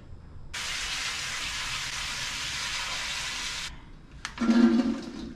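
A steady high hiss, like steam or running water, that starts abruptly and cuts off abruptly after about three seconds. A few clicks and a short louder knock follow near the end.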